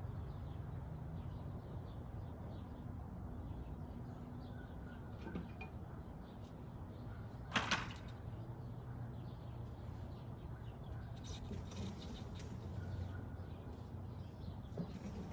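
A single sharp knock, a quick double clack, a little past halfway, over a low steady hum, with a few lighter taps some seconds later.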